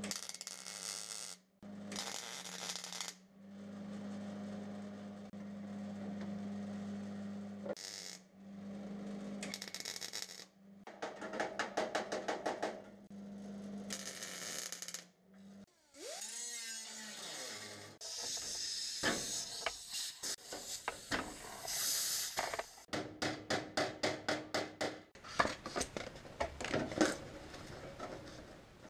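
Power-tool work on sheet-metal fender panels, in short bursts that start and stop every second or two over a steady low hum, turning into quicker runs of rapid clicking in the second half.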